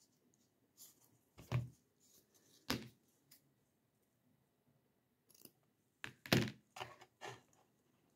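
Scattered clicks and knocks from hands handling a small hollow plastic pumpkin pot while threading ribbon through its rim holes on a plastic mat. The loudest cluster comes about six seconds in.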